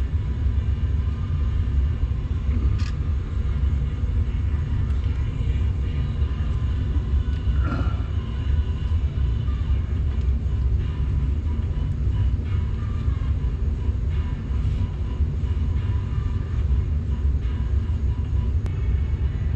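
A steady low rumble throughout, with a few faint light clicks of brake pads and clips being handled and fitted into the caliper bracket.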